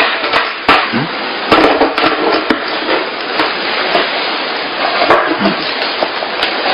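Rustling, scraping and sharp knocks of a ribbon-tied cardboard box being untied and its lid pulled open.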